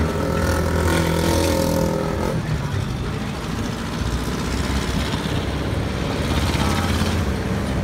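Road traffic: a motor vehicle's engine runs close by with a steady hum for the first two seconds or so, then fades into general traffic noise.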